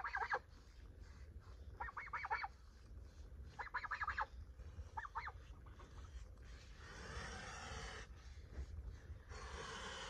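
Domestic white geese giving four short bursts of quick, rapid-fire honks, then two long breathy hisses, about 7 and 10 seconds in: a goose's threat hiss aimed at a person working close by.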